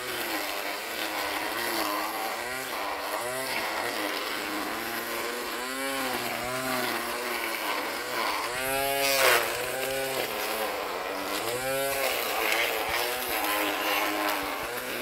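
Ryobi 18-volt cordless electric string trimmer running and cutting grass, its motor whine rising and falling in pitch again and again. A brief louder burst of noise comes about nine seconds in.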